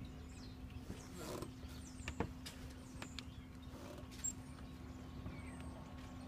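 Scattered footsteps and knocks on a sailing yacht's teak deck, a few sharp clicks among them, over a faint steady low hum.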